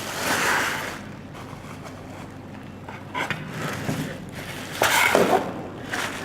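Handling and unpacking noises: a rustle at the start, then scattered knocks and clicks, the loudest about five seconds in.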